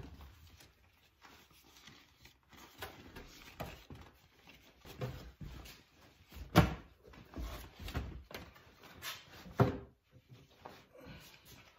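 Fabric rustling and bumping as a cover is spread and smoothed over a camping bed, with scattered knocks and two louder thumps, about six and a half and nine and a half seconds in.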